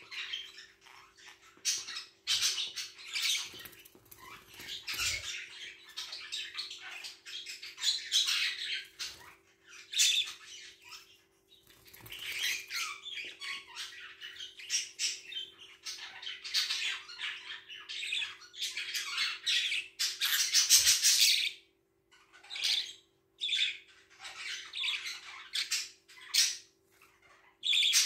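Budgerigars chattering and squawking in bursts with short pauses, loudest about three quarters of the way through and again at the very end.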